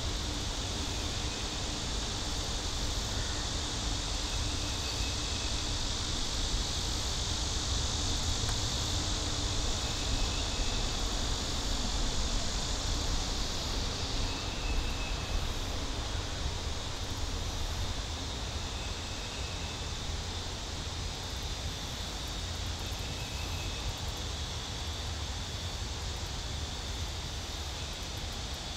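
A steady high buzzing chorus of insects, easing a little about halfway through, over a low rumble of wind on the microphone.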